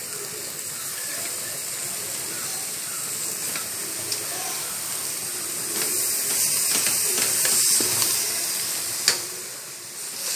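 Chicken pieces sizzling in hot oil and fried masala, a steady frying hiss that swells for a couple of seconds in the middle, with a few sharp knocks of the stirring spoon against the pot, the loudest just after nine seconds.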